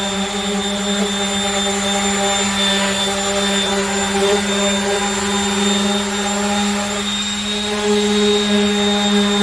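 Power sander running at a steady, unchanging pitch while sanding a plastic car bumper to scuff it for paint.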